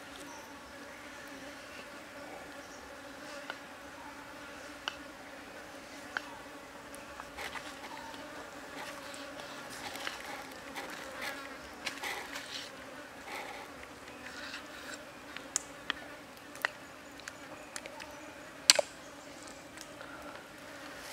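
A large knife scrapes and cuts the skin of a raw pig's trotter on a wooden chopping block, with scattered sharp knocks of the blade on the block, the loudest near the end. A steady insect buzz runs underneath.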